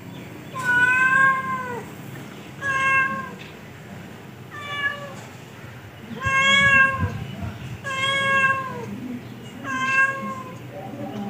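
Tabby-and-white cat meowing over and over: six clear, pitched meows about one and a half to two seconds apart, the first the longest at about a second and falling in pitch at its end.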